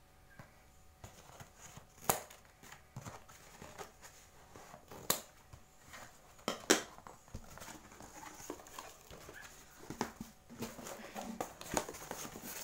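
A cardboard shipping box being cut and pulled open: a few sharp snaps and clicks, the loudest about two-thirds of the way in, then cardboard flaps scraping and rustling as they are folded back, with packets rustling inside near the end.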